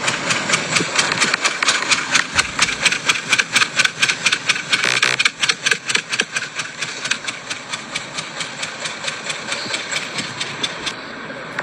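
Car engine running with a rapid, slightly uneven ticking from the exhaust, about five or six ticks a second: the abnormal exhaust noise that is the fault being fixed.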